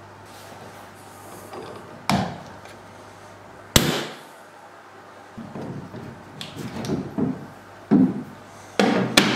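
Knocks and clunks of a cast-iron bench vise and a bar clamp being handled against a wooden workbench. There is a sharp knock about two seconds in and a louder one near four seconds. A run of irregular wooden knocks follows in the second half, getting louder toward the end.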